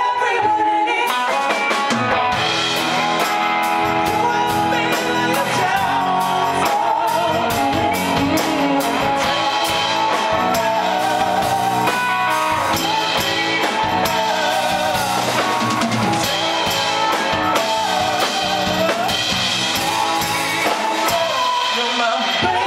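Live rock band playing: electric guitar and drum kit with singing over them.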